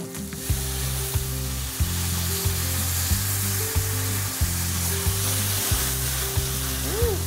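Hot oil sizzling hard in a sauté pan as soy sauce and vinegar broth is poured over frying broccoli stems. The sizzle starts the moment the liquid hits and holds steady.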